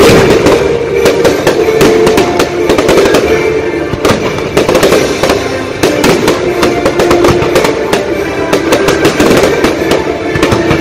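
Fireworks launching and bursting in a rapid, dense barrage of loud bangs and crackles, with show music playing underneath.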